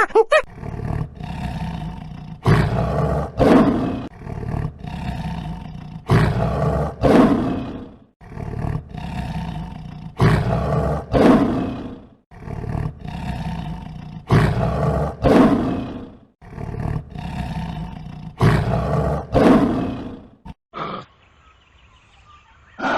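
Lion roaring: loud calls that fall in pitch, coming in pairs about every four seconds over a low rumble, then dropping to a few short, quieter calls near the end.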